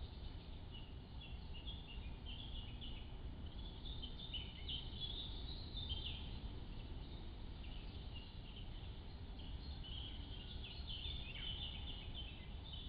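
Small songbirds singing, many quick high chirping notes coming in bursts, over a steady low rumble.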